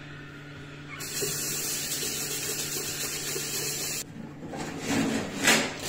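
Tap water running into a washbasin for about three seconds, starting and stopping abruptly, then paper towel rustling as hands are dried near the end.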